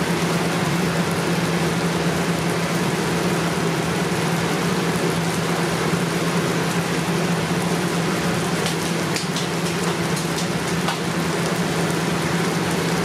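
Diced vegetables and bacon sizzling steadily in a large aluminium stock pot over high heat, sautéing rather than boiling, with a few sharp crackles in the second half. A steady low hum runs underneath.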